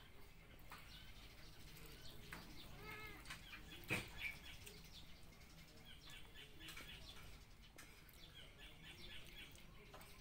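Quiet eating at a table: faint clicks and taps of fingers and a fork on plates, with one sharper knock about four seconds in. A few faint chirping calls sound in the background.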